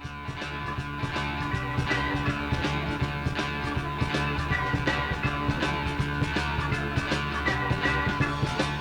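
Instrumental passage of a rock song with a steady drum beat and a sustained bass line; it swells up in level over the first second.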